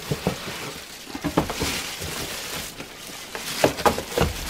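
Packaging being handled as a boxed kitchen appliance is lifted out: rustling and crinkling of a plastic bag and cardboard, with a few sharp knocks, most of them near the end.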